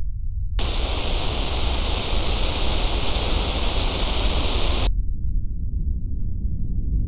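Static: a burst of white-noise hiss that starts suddenly about half a second in and cuts off abruptly after about four seconds, over a steady low rumble.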